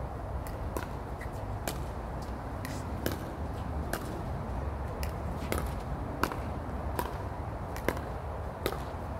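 Pickleball paddles hitting plastic balls in a soft dinking rally: sharp, short pocks at irregular intervals, about two a second, over a low steady rumble.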